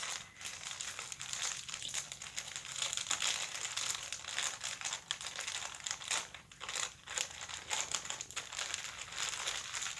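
Packaging crinkling and rustling as it is handled and opened to get a pair of socks out, in a run of quick crackles without a break.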